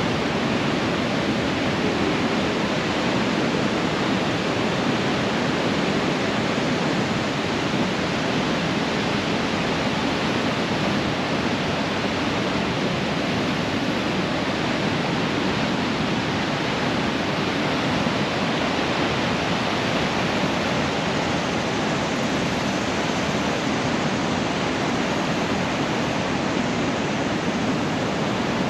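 Steady, unbroken rush of whitewater from the Niagara River rapids.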